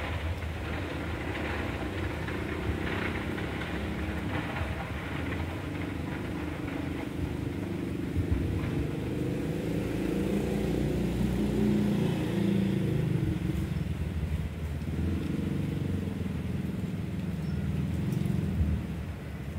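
A motor vehicle's engine running, with a low rumble that grows louder through the middle and drops away near the end.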